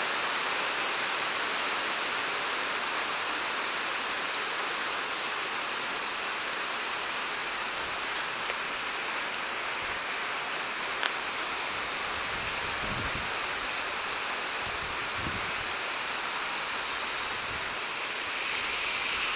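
Heavy rain pouring down onto a street and pavement, a steady dense hiss, with one sharp tick about eleven seconds in.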